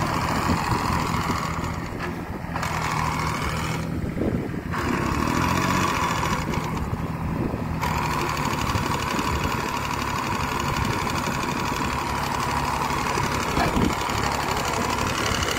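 Small tractor's engine running steadily as it drives along the crop rows with a mounted sprayer.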